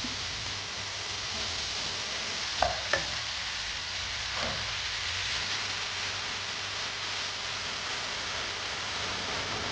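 Food sizzling in a hot pan during a stir-fry, a steady hiss, with two short knocks a little under three seconds in and a fainter one a couple of seconds later.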